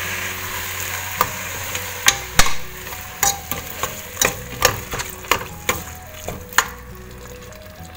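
A steel spoon stirs yogurt into hot masala in a stainless steel pressure cooker, clinking and scraping against the pot about twice a second. A frying hiss is heard in the first second or two, and the stirring fades out near the end.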